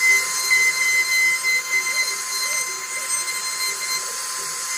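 CNC router spindle running with a steady high whine over a hiss as it carves wood.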